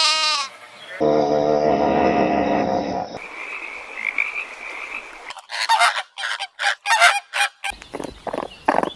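Several different animal calls in quick succession, each cut off abruptly: a long low pitched call, a noisy stretch, then a run of rapid short calls.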